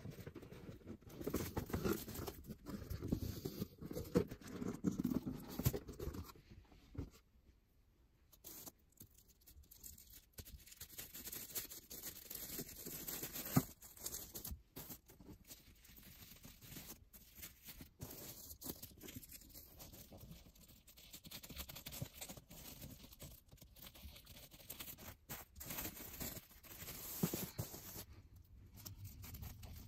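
Tissue paper rustling and crinkling as hands handle and unwrap a tissue-wrapped doll box, with scattered soft taps of cardboard and one louder tap partway through.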